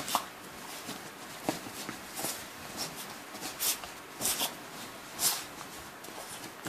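Two Yorkshire terriers scuffling and burrowing in blankets during a post-bath frenzy. The bedding rustles throughout, and several short, sharp snorts break through.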